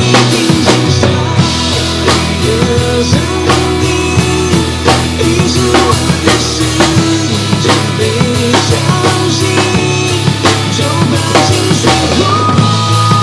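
Acoustic drum kit played live over a recorded pop backing track: kick, snare and cymbal hits in a steady beat over held bass notes and a melody line, without vocals in this passage.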